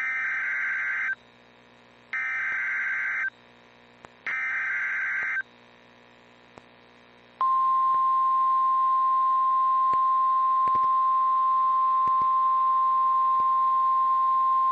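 Emergency Alert System data bursts, the buzzy digital header sent three times about two seconds apart, followed by a steady single high alert tone that starts about seven seconds in. Together they signal the start of a new alert, here a tornado warning.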